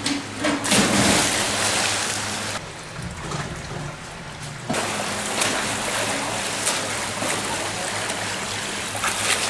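Splashing and rushing water in an indoor swimming pool, loudest in the first couple of seconds. The level drops abruptly a little after two seconds in and jumps back up at about the five-second mark, then stays steady.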